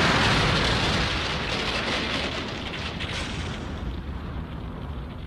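Explosion sound effect: a loud rumbling blast that slowly dies away, with crackling about two to three seconds in.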